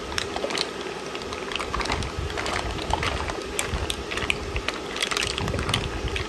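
Green mussel shells clattering and clicking against each other and the nonstick pan as they are stirred with a spatula, in many quick irregular clicks over a steady hiss from the hot pan.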